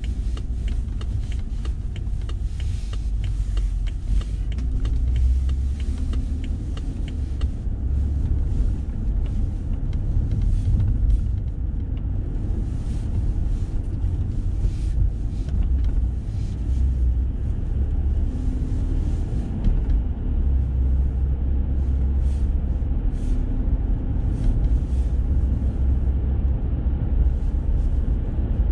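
Car cabin noise while driving on a city road: a steady low rumble of engine and tyres. For the first seven or so seconds a fast, regular ticking runs over it.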